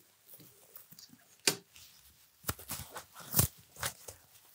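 Quiet handling noises as a pigeon is lifted out of a wooden carrying box: several sharp knocks and clatters from the box, with soft rustling of feathers between them.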